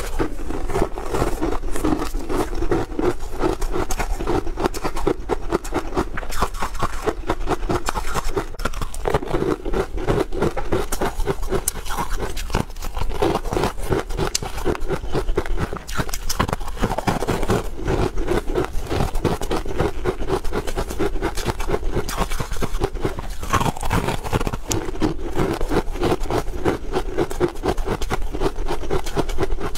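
A person chewing crisp, flaky pastry close to a clip-on microphone: a dense, continuous run of small crunches and crackles.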